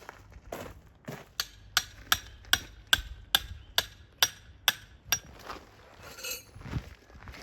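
Tent pegs being driven with a hammer: a run of about eleven sharp, ringing metal strikes, roughly two and a half a second, that stops about five seconds in, followed by soft rustling.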